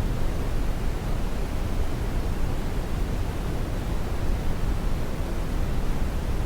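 Steady synthetic white noise played to settle a baby to sleep: an even, unbroken rushing hiss, heaviest in the low end.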